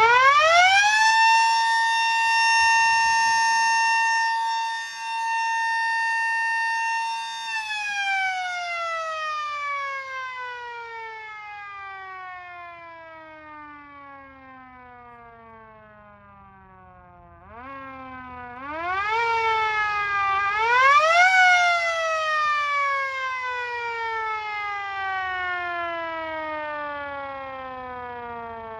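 Miniature Sentry 10V 16-port high-tone siren, its motor spinning the chopper: it winds up quickly to a steady wail, holds it for about seven seconds, then winds down in a long falling tone. Past the middle it is powered up again in two short pushes, rising to a second peak before winding down once more.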